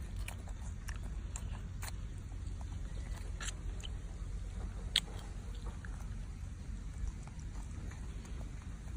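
Baby monkey chewing fruit: a few scattered wet clicks and smacks, the sharpest about five seconds in, over a steady low rumble.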